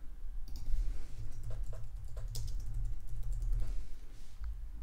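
Typing on a keyboard: a quick, uneven run of key clicks as a short name is entered, over a low steady hum.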